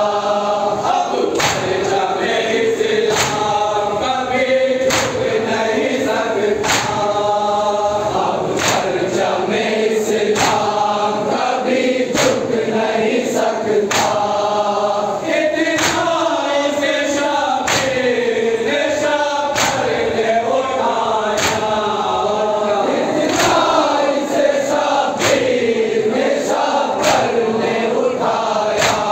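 A group of men chanting a noha, a Shia mourning lament, in unison. Sharp rhythmic matam strikes, hands beating on chests, keep time about once a second.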